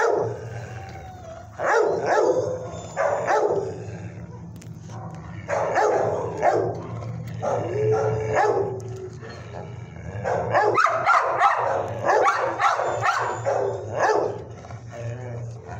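Dogs in a shelter kennel barking in repeated bursts, over a steady low hum.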